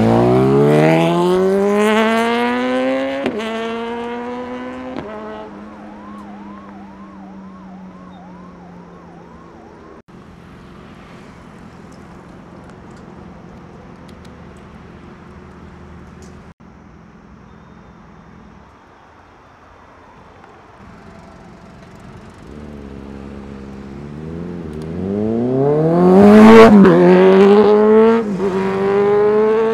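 Sport motorcycle engines revving hard: a loud climb in pitch at the start, broken twice by upshifts, fading to a quieter steady running, then about 23 seconds in revs build again to a loud peak of acceleration near the end.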